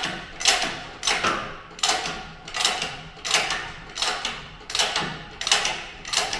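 Sharp metallic knocks or clicks repeating evenly, about three every two seconds, each with a short ringing tail, from hand work on the car shell and rotisserie jig.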